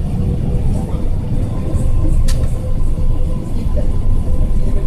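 Cabin noise inside an Airbus A380 taxiing: a dense low rumble of the engines and rolling gear with a faint steady engine whine.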